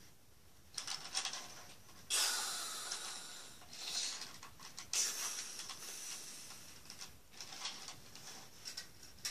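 Hissing spray noises made with the mouth to imitate a toy fire hose spraying water: several bursts, the loudest about two seconds in and about five seconds in.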